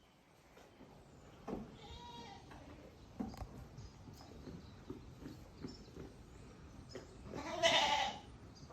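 A goat bleating: one loud bleat near the end, with a fainter call about two seconds in.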